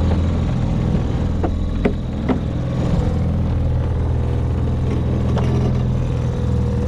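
Mercury 3.3 hp two-stroke outboard motor running steadily at low throttle. A few knocks and clunks, from gear being moved about in the boat, come about a second and a half in, twice more within the next second, and again past five seconds.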